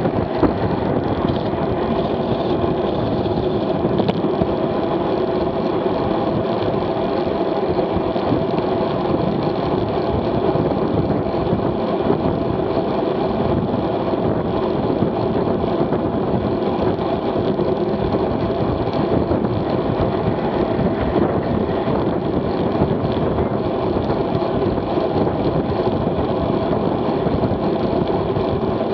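Steady rush of wind over a bicycle-mounted camera's microphone, with road-bike tyres humming on asphalt, at about 27 mph.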